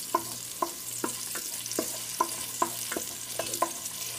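Chopped garlic and onion sizzling in hot oil in a metal pot, stirred with a wooden spoon that knocks lightly against the pot two or three times a second.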